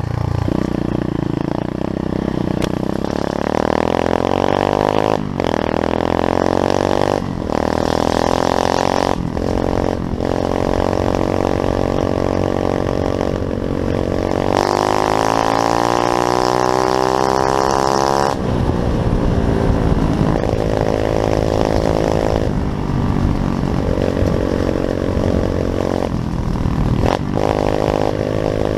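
Pit bike engine running under load as it is ridden, with several brief drops in the revs and a long rise in pitch that cuts off suddenly, like a shift.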